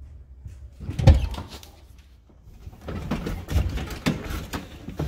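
Knocks, clicks and rustling of someone rummaging around a car's interior and floor, searching for a dropped key, with one heavy thump about a second in.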